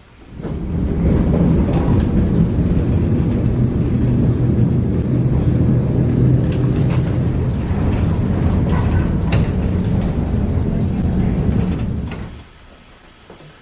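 Heritage electric tram running on its track, a steady low rumble of wheels on the rails with scattered sharp clicks and knocks. The rumble builds about half a second in and cuts off about twelve seconds in.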